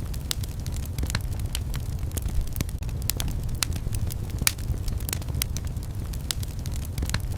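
Wood fire burning in a fireplace: irregular sharp crackles and pops from the burning firewood over a steady low rumble of the flames.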